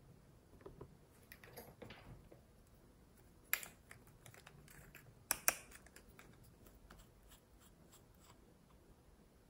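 Faint handling sounds of small glass nail polish bottles: a few sharp clicks and taps as they are picked up and knock together, the loudest about three and a half seconds in and a close pair about two seconds later, with light ticking as a cap is unscrewed.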